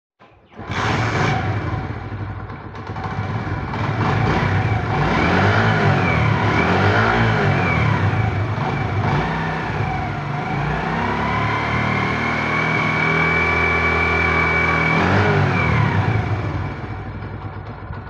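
Honda CD70's small single-cylinder four-stroke engine being revved, rising and falling several times, then held at high revs for a few seconds before dropping back near the end. The noise it makes under revving is from a worn timing chain.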